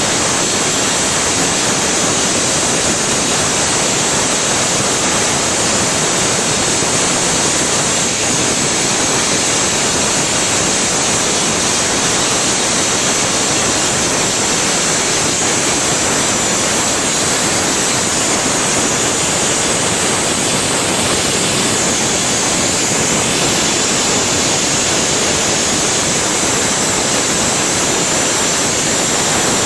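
Glass-blowing lathe burner hissing steadily, its large flame heating a glass tube held between the lathe's chucks.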